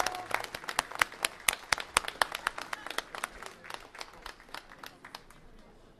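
Audience applause after a song, thinning to scattered hand claps and dying away about five seconds in.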